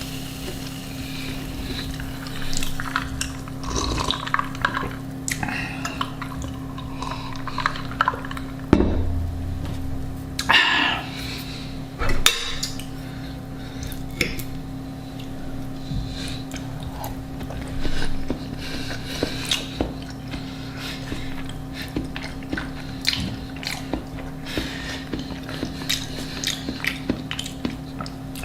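Close-miked eating: small chewing and mouth noises with many short clinks of cutlery and dishes, a few louder handling noises about nine to twelve seconds in, over a steady low hum.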